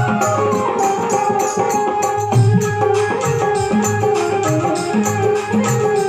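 Instrumental passage of a Rajasthani devotional bhajan: hand drums keep a quick, steady beat under held melodic instrument tones.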